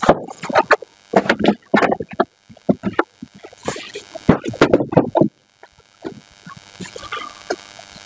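Handling noise from a plastic incubator being moved about in its polystyrene foam packaging: a busy run of knocks, scrapes and rubbing, which dies down after about five seconds into a few faint sounds.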